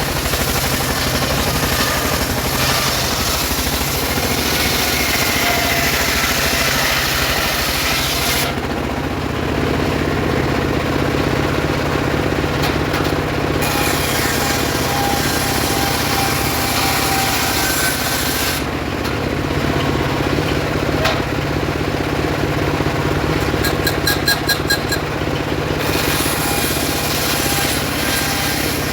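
Homemade circular saw ripping sengon timber: a steady motor hum under the bright noise of the blade in the wood. The cutting noise stops twice for several seconds, about a third of the way in and again past the middle, leaving only the machine running, with a few quick clicks in the second pause.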